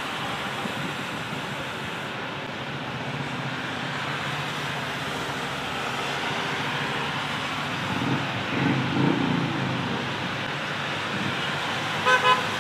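Traffic on a rain-soaked road: a steady wash of rain and tyres hissing on wet asphalt, with vehicles passing louder about two-thirds of the way through. Near the end a vehicle horn gives two short toots.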